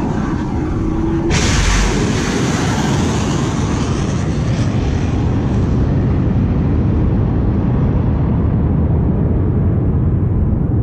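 Stratos III hybrid rocket motor firing at launch: a loud, steady, deep rumble, with a sharp hiss that cuts in suddenly about a second and a half in and fades away over the next few seconds while the rumble goes on.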